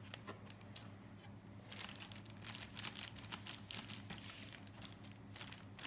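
Faint scattered clicks and light rustles of fingers pressing shortcrust pastry into a fluted metal tart tin, thicker from about two seconds in, over a low steady hum.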